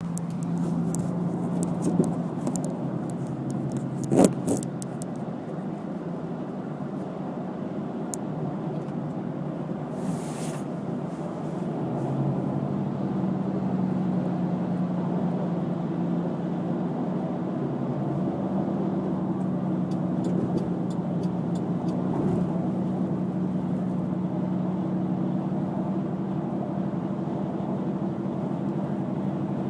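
Car driving on a freeway: a steady hum of road and engine noise with a low drone. There is a single sharp knock about four seconds in.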